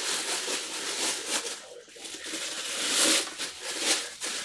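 Clear plastic bag crinkling and rustling as a football helmet is unwrapped from it, loudest about three and four seconds in.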